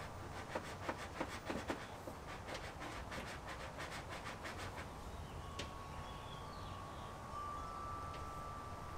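Light, irregular clicks and taps of tools and parts being handled in a car's engine bay, several a second through the first few seconds, then fewer. From about halfway there is a faint steady high tone.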